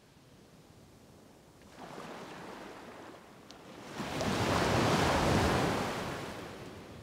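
Sea waves washing ashore: a small swell of surf about two seconds in, then a larger wave rising from about four seconds in and fading away.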